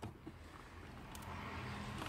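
Faint steady background noise that grows gradually louder, with a couple of faint plastic clicks from the wing mirror glass being pressed into place.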